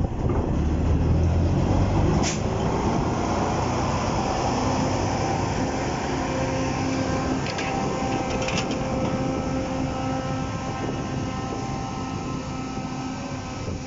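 W.G. Bagnall 0-6-0 diesel-mechanical shunter working under power as it moves off with a wagon, loudest and deepest for the first two seconds, then settling to a steady running note. A few sharp knocks sound over it, about two, seven and a half and eight and a half seconds in.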